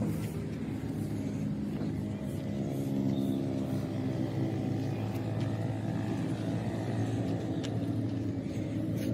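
An engine running steadily, getting a little louder about three seconds in.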